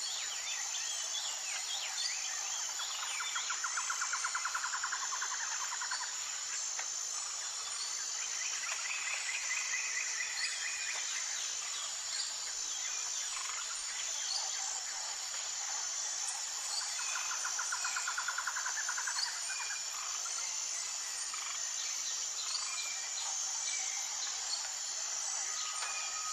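Tropical forest soundscape: a steady, high-pitched, pulsing insect chorus with scattered bird chirps. Rapid trilling calls rise out of it three times, each lasting a few seconds.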